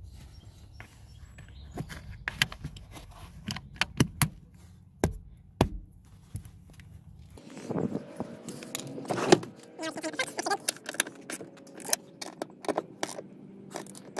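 Scattered sharp clicks and clinks of hand tools and small metal and plastic parts being handled, busiest in the second half.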